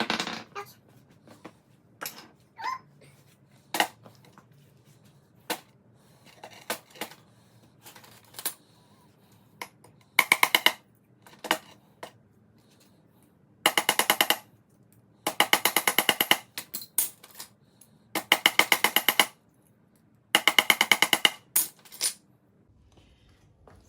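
Bursts of rapid light hammer taps on thin aluminium strips, about a second at a time, with single knocks and clicks between the bursts: the slightly curved strips being tapped straight.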